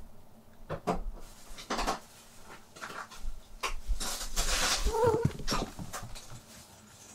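A Munchkin cat gives one short, wavering chirp-like call about five seconds in, the little "kuun" it makes when setting off to run. Light knocks and rustling sound around it.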